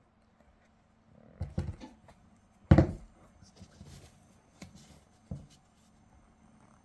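Hands handling a basketball shoe, making soft rustles and knocks that come a second or so apart. The loudest knock falls a little under three seconds in.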